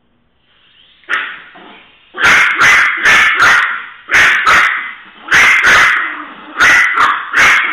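Small dog barking sharply in quick runs of two to four, about a dozen barks, at a small toy helicopter being flown low.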